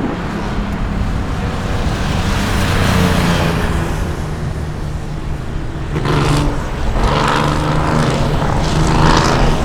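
A car's engine running on a racing circuit, with louder passes about six and nine seconds in.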